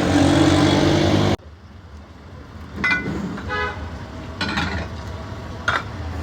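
A motor vehicle engine runs loud and close, then cuts off suddenly about a second and a half in. Quieter street traffic follows, with several short, high toots.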